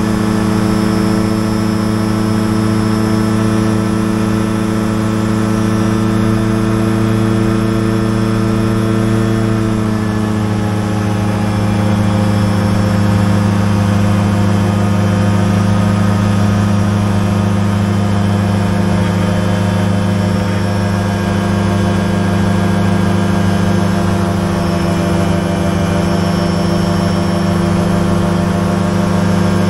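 Light aircraft's engine and propeller droning steadily in flight, heard from inside the cockpit, with a slight shift in pitch about ten seconds in.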